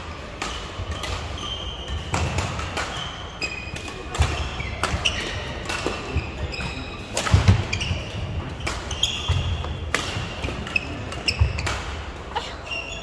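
Badminton rally: rackets striking the shuttlecock in sharp cracks about once a second, with sneakers squeaking on the court floor and footfalls thudding.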